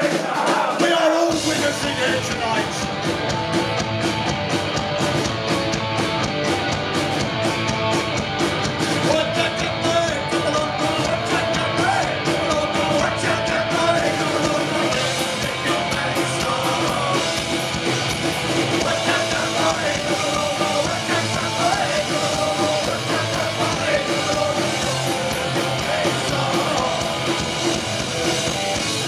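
Live thrash-punk band playing loud through a venue PA: distorted electric guitars, drums and shouted vocals, heard from within the crowd. The low end of the band comes in about a second in.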